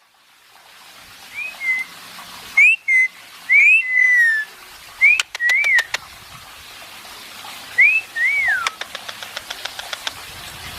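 A pet parrot whistling a series of short slurred notes, each rising then dropping, with one longer falling whistle about four seconds in. A few sharp clicks come in the middle, and a quick run of faint ticks follows near the end.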